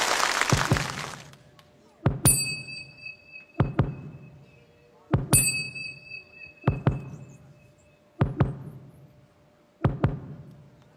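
Applause dying away, then juggling balls struck onto drums: single thuds and quick pairs of hits about every one and a half seconds. Twice the hit sets off a bright ringing tone.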